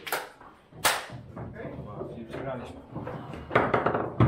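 Sharp clacks and knocks on a foosball table, as the ball and the rod figures strike, the loudest two just after the start and about a second in. Some low voices are heard too.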